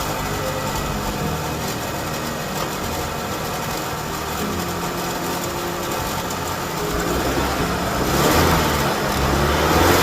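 2.7 L TurboMax four-cylinder in a Chevy Silverado 1500 running with a rattle from play in a valve and its actuator arm built into the turbocharger, a fault that only a new turbo cures. The sound swells louder over the last few seconds.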